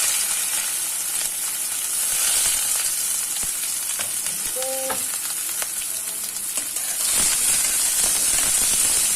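Chopped onions and green chilli sizzling in hot oil in a kadai, a loud steady frying hiss with light clicks of a spoon stirring against the pan.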